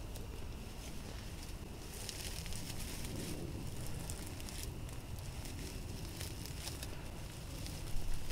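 Dry grass tinder bundle rustling and crackling as it is folded and pressed in the hands, with many fine ticks: wrapping an ember into the bundle for a flint-and-steel fire.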